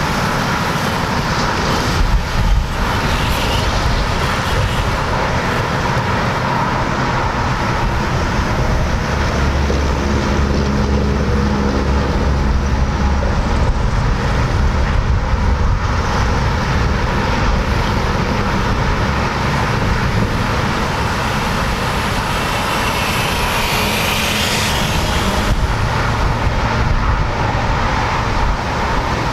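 Steady noise of highway traffic. A low hum from a heavy vehicle swells about ten seconds in, and a brief rising-and-falling whine comes about three-quarters of the way through.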